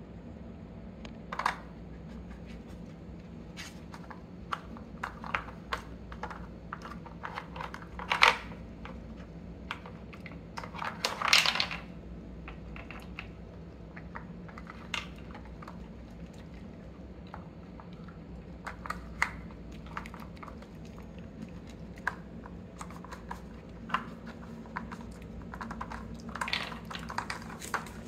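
Plastic dog treat-puzzle toy clicking and clacking irregularly as a Scottish terrier noses its hinged lids and bone-shaped sliders, with the loudest knocks about a third of the way in.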